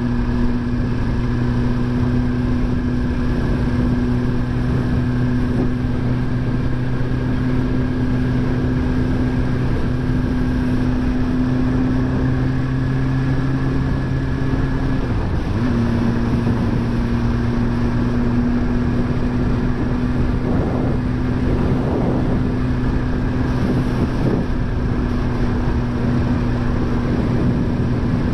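Suzuki GSX-R1000R inline-four engine running steadily at an even speed, its pitch dipping briefly about halfway through before settling again.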